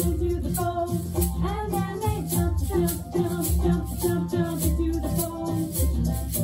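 Children's salsa song playing: a sung vocal over a repeating bass line, with a steady maraca shaker beat.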